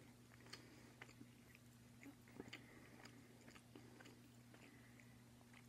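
Faint close-up chewing of a mouthful of turkey sandwich: scattered soft mouth clicks and smacks, over a steady low hum.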